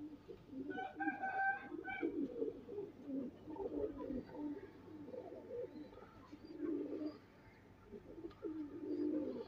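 Domestic pigeons cooing: low, warbling coos repeated on and off.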